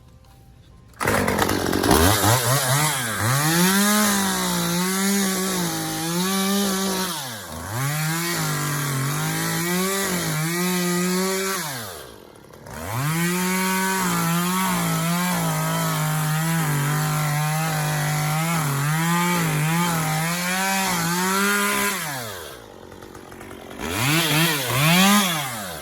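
A chainsaw starting up about a second in and running hard, its pitch repeatedly sagging and recovering as the chain bites into the material being cut. It drops back briefly about halfway through and again near the end, then revs up once more.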